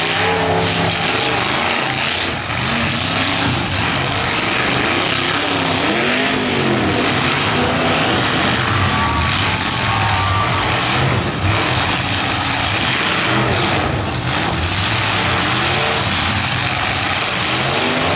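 Several demolition derby cars' engines running at hard throttle together, revving up and down in pitch as the cars charge and back up.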